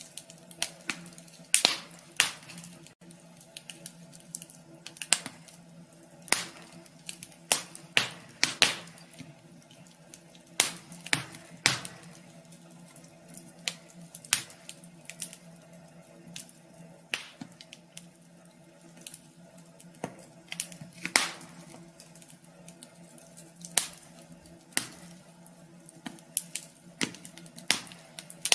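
Wood fire crackling in a wood stove: irregular sharp pops and snaps, some louder than others, over a steady low hum.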